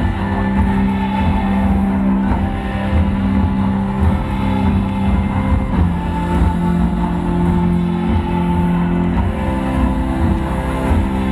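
Loud electronic dance music from a festival sound system: heavy pulsing bass under long held synth notes that change every second or two.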